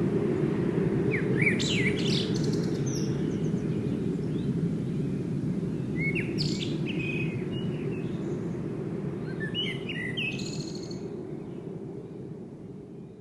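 Songbirds calling in three short bouts of chirps and quick whistled glides over a steady low rushing background, the whole sound gradually fading out near the end.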